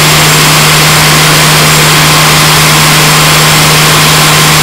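Fire engine's engine running steadily close by to drive its pump for the hoses, a loud, unchanging drone with a constant low hum under a wide hiss.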